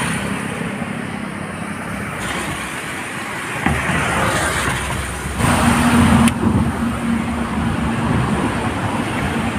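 Road traffic: a steady rush of passing vehicles, with an engine's low steady hum coming in about five and a half seconds in.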